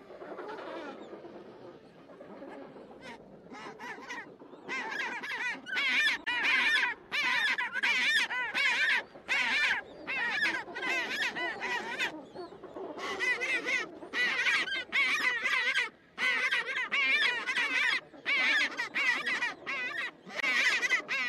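Penguin colony calling: a rapid run of harsh, wavering honks and squawks that begins about four seconds in, over a soft background hiss.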